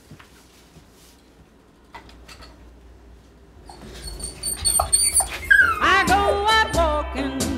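A dog whining in high, wavering whimpers with falling glides, starting about halfway through after a quiet stretch with a few light clicks. Music comes in near the end.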